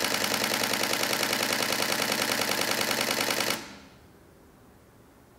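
Nikon D500 DSLR shutter firing a continuous high-speed burst: rapid, even clicking at about ten frames a second that stops about three and a half seconds in.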